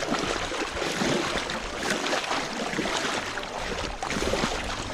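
Shallow water splashing and sloshing as a hand scoop net is pushed and worked in against a reedy bank to drive fish into it.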